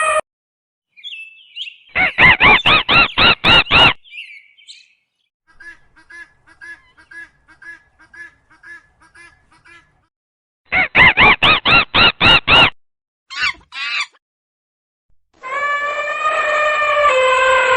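A run of animal calls: two bursts of rapid repeated bird calls, about eight in a second and a half each, with a fainter rhythmic run of calls between them. Near the end comes one long drawn-out bleat.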